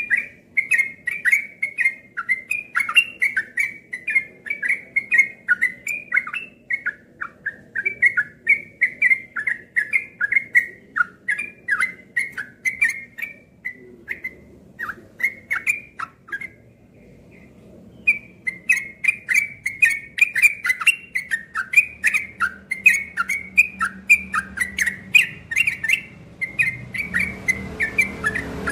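Yellow-vented bulbul (trucuk) singing a rapid, continuous run of short whistled chirping notes. It pauses briefly a little past the middle, then carries on. A low hum comes in under the song near the end.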